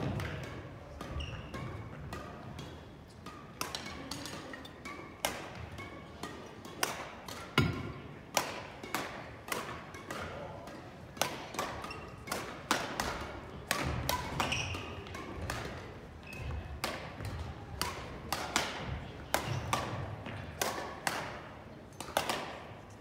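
Badminton rackets striking shuttlecocks in rallies across several courts: many sharp hits at irregular intervals, with footfalls on the wooden gym floor between them.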